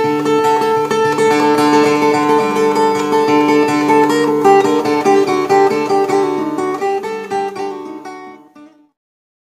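Intro theme music led by a plucked string instrument playing quick melodic notes over a sustained bass note, fading out near the end.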